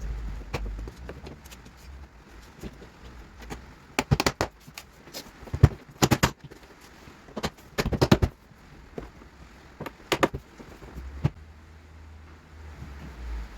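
Clusters of sharp knocks and clicks, a few at a time with pauses between: a car's door card being pressed and thumped onto the door so its plastic trim clips snap into place.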